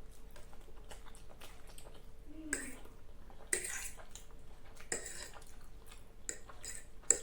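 Close-miked eating of spicy black bean instant noodles: steady wet chewing and mouth clicks, with a few louder wet bursts of about half a second.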